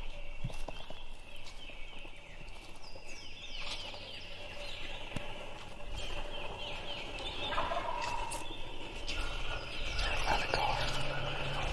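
Wild turkey gobbling: two rattling gobbles, about three and six seconds in, faint at some distance.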